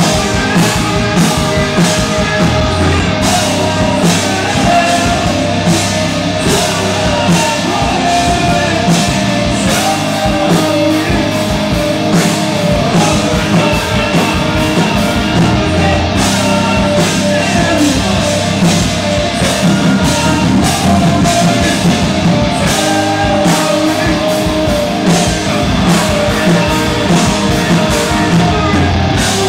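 Live hard rock band playing loud through a PA: distorted electric guitars, a drum kit keeping a steady beat, and a singer.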